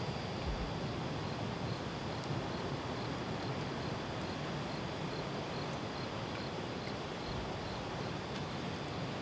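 Insects, crickets by their sound, chirping: a faint high trill pulsing evenly throughout, over a constant rushing hiss.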